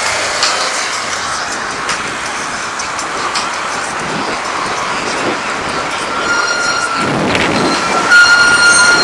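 Steady rushing wind and road noise from a bicycle ride. About six seconds in, a high squeal of several steady tones sets in and grows louder toward the end.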